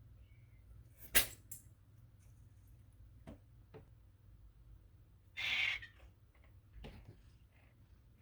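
Cat eating dry food: a few sharp clicks and crunches, the loudest about a second in, with a short hissing noise about halfway through.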